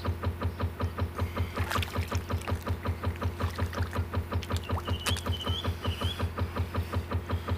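Steam locomotive sound effect chuffing steadily at about five to six beats a second, with a few short chirps about five seconds in.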